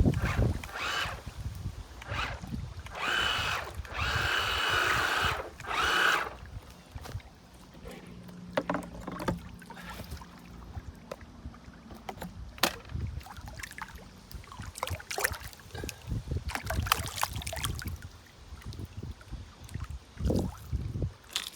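Small electric motor of a radio-controlled boat whining in short runs, the longest lasting about three seconds early on, with scattered knocks in between.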